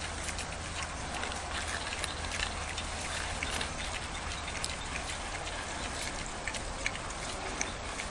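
Wild boars rooting in dry ground litter: steady rustling with many irregular small crackles and snaps.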